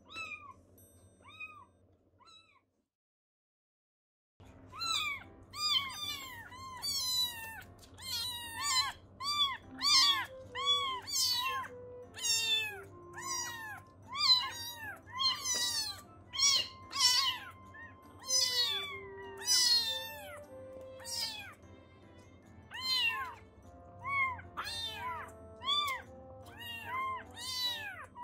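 Very young kittens meowing over and over, thin high-pitched mews about one to two a second, over soft background music. A few faint mews come first, then a short total silence, and the loud calling starts about four seconds in.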